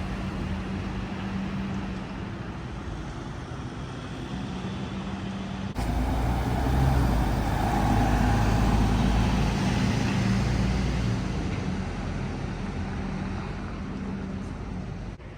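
City street traffic: the running engines and tyre noise of passing cars and buses. It turns suddenly louder about six seconds in, as a heavier vehicle runs close by, then eases off over the following seconds.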